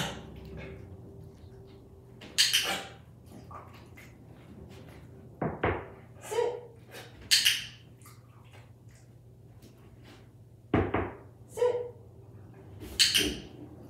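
Knuckle knocks on a hard surface used as a dog's sit cue: single sharp knocks about five seconds apart, each followed by shorter, hissier sounds.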